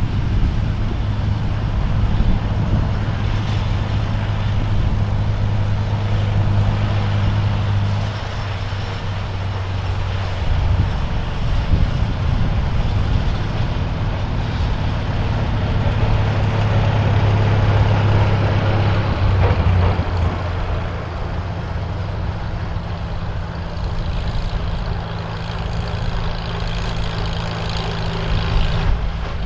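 Vintage farm tractor engine running steadily, its engine speed shifting a few times.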